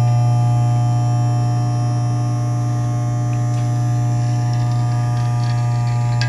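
Vibratory parts-feeder bowl running, its electromagnetic drive giving a loud, steady hum. A few faint clicks come in the second half.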